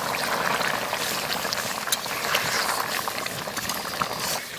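Thick goat-meat masala gravy bubbling and spitting in a large iron kadai over a wood fire, a steady crackly simmer that drops away near the end.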